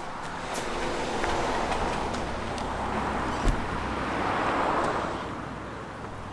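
A car driving up and pulling in, its engine and tyre noise swelling and then dying away, with a single thump about three and a half seconds in.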